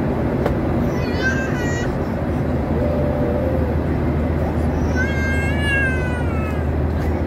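Steady cabin noise of a Boeing 737-800 cruising, its CFM56-7B engines and the airflow making a constant rushing hum. Over it come two high, wavering cries: a short one about a second in, and a longer one about five seconds in that rises and then falls.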